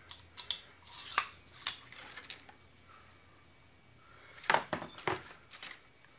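Hands handling clear plastic parts bags and a small plastic case from a new chainsaw piston kit: crinkling and small clicks and clinks in two bouts, the second, about four and a half seconds in, the louder.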